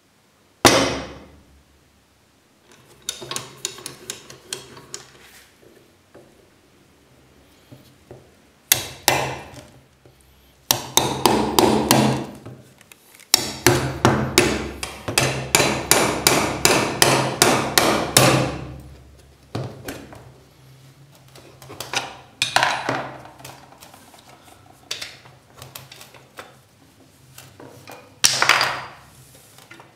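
Hammer blows on a steel pin punch, driving the pins out of a rusted knife handle: a single hard strike, then runs of rapid metallic blows at about four a second, and scattered strikes later.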